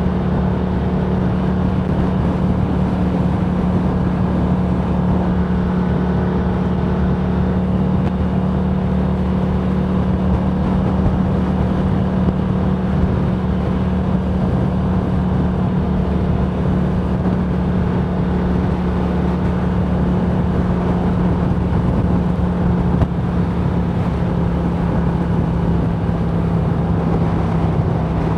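Motorcycle cruising at a steady speed: a steady drone from the drivetrain under heavy wind and road noise, dropping slightly in pitch near the end.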